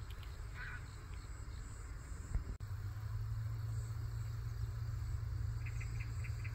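Crickets and other insects chirping steadily in the grass, with a short run of quick chirps about six seconds in, over a low steady rumble that grows stronger about halfway through.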